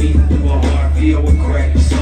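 Rapper performing live over a loud hip hop beat played through a club PA, with heavy, steady bass under the rapped vocal.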